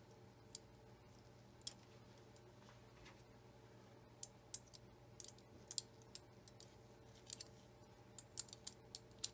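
Light, sharp clicks of small chrome parts from the bobbin case assembly of a Singer Featherweight 221 as they are handled and turned in gloved fingers. There are two single clicks early, then a quick irregular run of clicks from about four seconds in.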